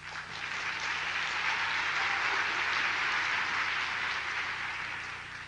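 Audience applauding: a few scattered claps that swell into full applause, then die away near the end.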